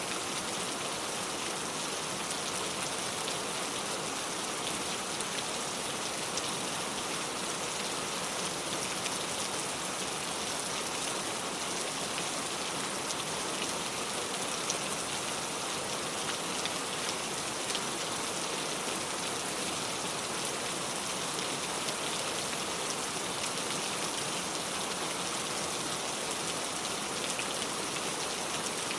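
Steady rain falling: an even hiss with a fine patter of individual drops, unchanging throughout.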